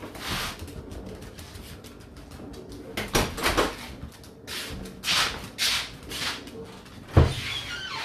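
Whirlpool WFO3P33DLXUK dishwasher running its first rinse: water from the spray arms sloshes and swishes against the door and racks in uneven surges over a faint steady hum, with one heavier thump about seven seconds in.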